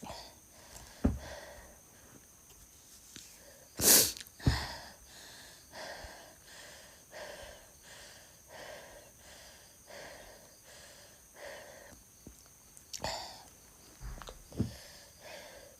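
A woman gives a hard, explosive cough about four seconds in, then heaves short wheezy breaths about every two-thirds of a second, as when retching. There is a sharp knock about a second in.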